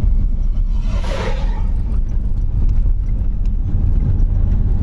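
Steady low rumble of a car driving on a gravel dirt road, heard from inside the car, with scattered small clicks. About a second in, a loud rushing whoosh as an oncoming dump truck passes close by.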